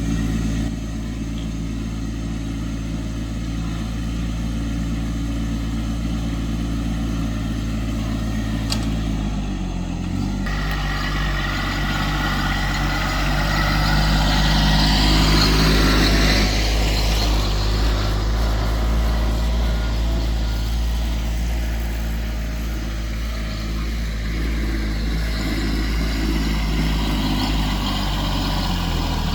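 An engine running steadily, with a low, even note whose pitch drops about ten seconds in. A rushing noise swells over it around the middle.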